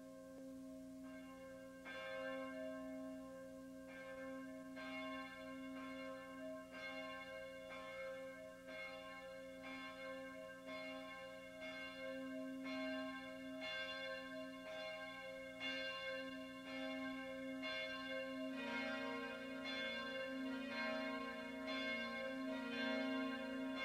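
Church bells ringing, each bell struck about once a second and ringing on. About eighteen seconds in, lower-pitched bells join and the strikes come closer together.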